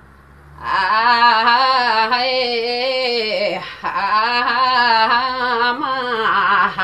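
A woman singing a Limbu palam unaccompanied: two long, wavering, ornamented phrases with a short breath between them, the second cutting off at the end.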